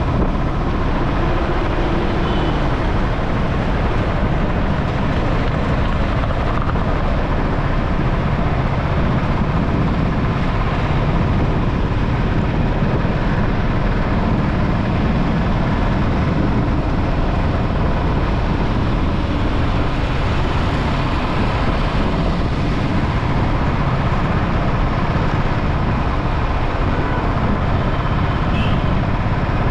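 Steady rush of wind and road noise picked up on a moving motorcycle, heaviest in the low end and holding even throughout.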